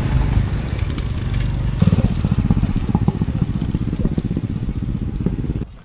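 Honda CT110 postie bike's small single-cylinder engine revving hard under load as the bike climbs out of a steep spot, getting louder about two seconds in. The sound cuts off suddenly near the end.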